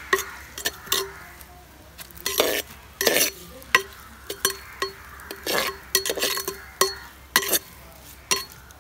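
Metal slotted spoon stirring sliced onions in an earthenware clay pot, with irregular scrapes and clinks of metal on the pot, some ringing briefly. A faint sizzle of onions frying in hot coconut oil runs underneath.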